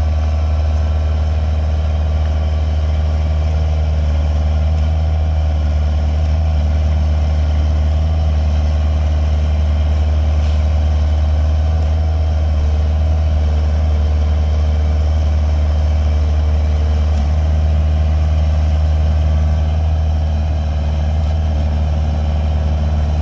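Kubota mini excavator's diesel engine running steadily as a deep, even drone while its tracks and swing hydraulics work to drag it out of the mud it is stuck in.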